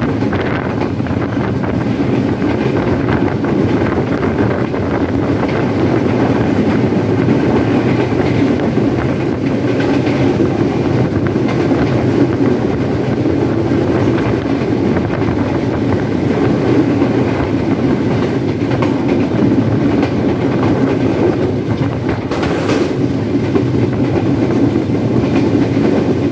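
Intercity passenger train running at speed, heard from aboard: a steady rumble of the carriage wheels on the rails.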